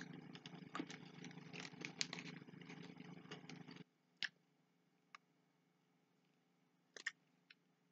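Faint chewing of a hard-shelled Skittles candy: small irregular clicks and crackles over a low hum. The hum drops out about four seconds in, leaving only a few isolated clicks.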